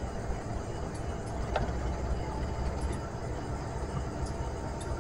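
CC201 diesel-electric locomotive, with its GE V8 diesel engine, idling at a standstill with a steady low rumble.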